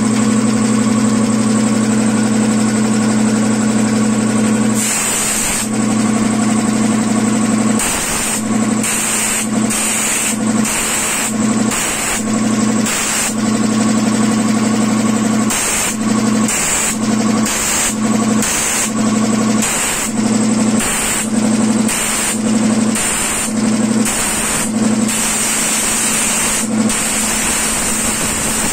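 Piston air compressor running steadily, and from about five seconds in a blow gun giving many short blasts of compressed air, about one a second, blowing water out of a washed audio mixer board.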